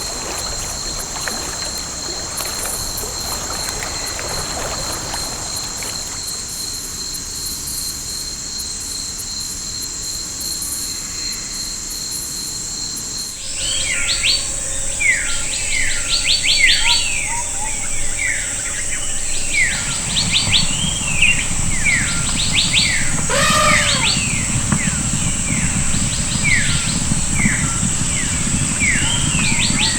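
Forest insects keep up a steady high-pitched buzzing drone. About halfway through the sound changes abruptly: birds begin calling over a continuing insect drone, repeating short whistles that slide downward, and a low rushing noise joins a little later.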